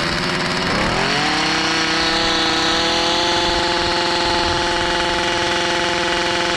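A Stihl FS45 trimmer's small two-stroke engine revs up over about the first second, then holds a steady high-speed whine. It is free-revving with no cutting head fitted, running on its freshly cleaned carburetor.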